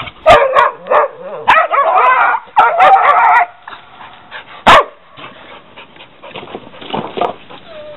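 Young dog barking and yipping in loud, high-pitched bursts for the first few seconds, then only a few softer barks; overexcited at fetching firewood. A single sharp knock comes about halfway.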